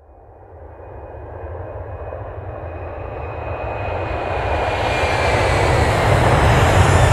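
A loud, steady roar that swells over several seconds, with a deep low rumble and a faint high whine slowly falling in pitch.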